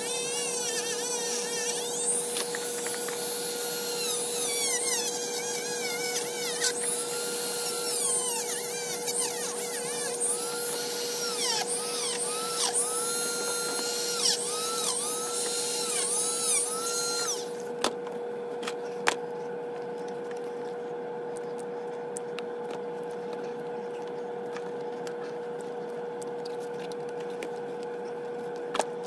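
Dremel rotary tool with a cutoff wheel cutting rubber sheet: a high whine that dips and rises in pitch as the wheel bites, stopping abruptly about 17 seconds in. After that a steady hum remains, with a few sharp clicks.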